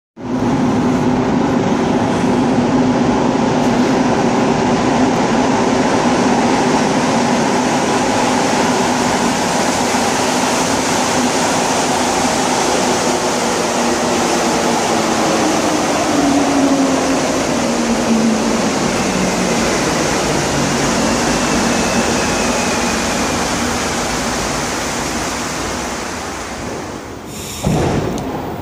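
Montreal Metro AZUR rubber-tyred train pulling into the station: a loud, steady run of the passing cars, with tones that fall in pitch and fade as the train slows to a stop. A short, loud burst of noise comes near the end.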